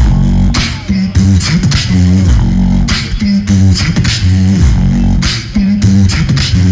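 Fast human beatboxing into a cupped handheld microphone: deep hummed bass tones held and broken off, with sharp snare-like and hissing hi-hat sounds laid over them in a steady beat.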